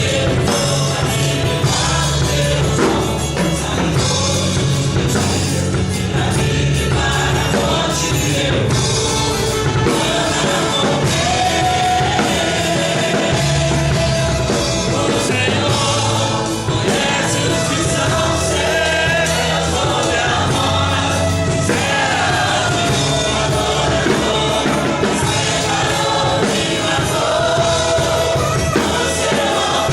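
Gospel worship song with a choir singing over a full band with a steady beat.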